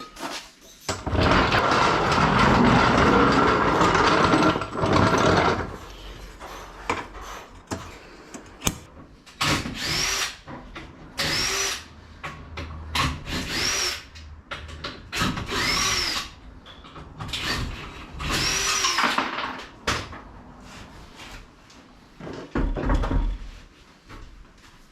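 Handheld power drill/driver running: one long steady run at first, then several short triggers, each spinning up and winding down in pitch. A low thump near the end.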